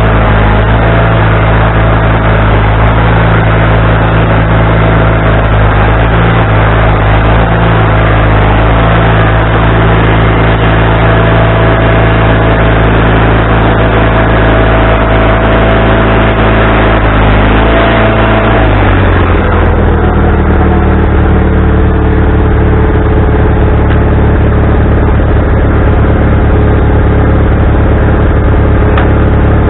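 Wood-Mizer LT40HD sawmill's engine running loud and steady at high speed, then dropping to a lower, steady speed about two-thirds of the way through.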